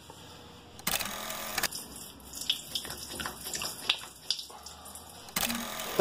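Spring-coil drain snake working in a clogged floor drain: wet sloshing and scraping with scattered metallic clicks and rattles, and two short louder rushes of noise, one about a second in and one near the end.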